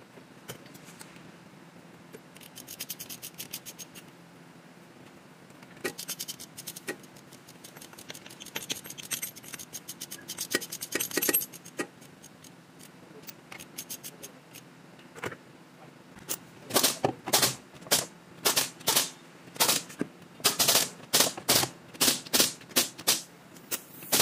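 Hand ratchet wrench clicking as bolts on the rear differential housing are tightened. It comes in short runs of fine clicks through the first half, then in louder bursts of clicks, about two a second, over the last eight seconds.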